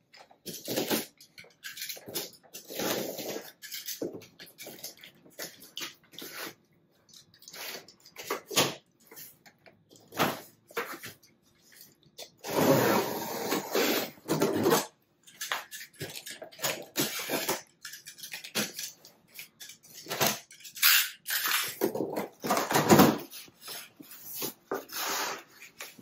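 A box cutter slicing packing tape and a flat-pack cardboard box being pulled open: irregular bursts of scraping, tearing and rustling cardboard, with the loudest stretches about halfway through and again near the end.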